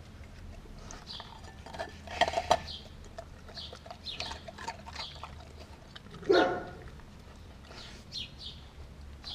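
Doberman eating raw food from a glass bowl: wet chewing and licking with scattered clicks of teeth and muzzle against the glass, and a few louder knocks of the bowl about two seconds in and again after six seconds, the later one ringing briefly.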